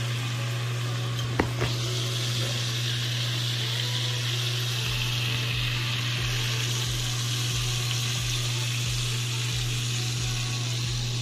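Chicken tenders deep-frying in hot oil in an enamelled pot, the oil sizzling and bubbling steadily, over a constant low hum. A single short click about a second and a half in.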